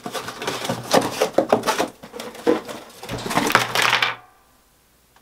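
Cardboard shipping box being opened by hand: flaps pulled and cardboard rustling, with quick clicks and knocks. The sound cuts off about four seconds in.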